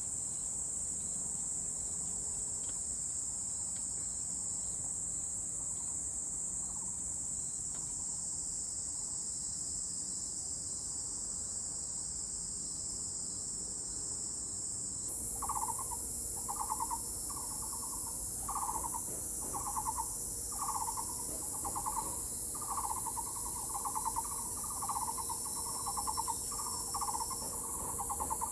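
Cicadas buzzing in a steady, high-pitched chorus. About halfway through, the chorus changes and a bird starts repeating a short, pulsed, hooting call about once a second.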